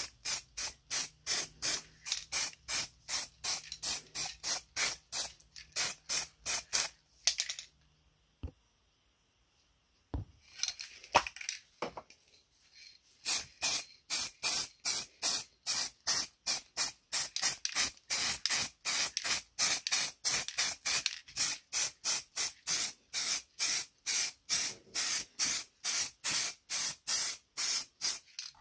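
Paint being sprayed onto cast-iron parts in short hissing bursts, about three a second, broken near the middle by a pause of a few seconds with a couple of clicks.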